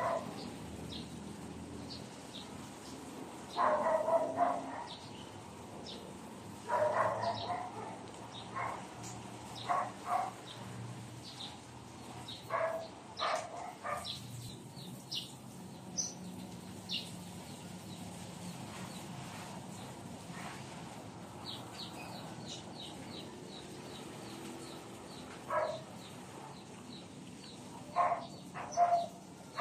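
A dog barking now and then in short bouts, with birds chirping and a run of quick high chirps about two-thirds of the way through.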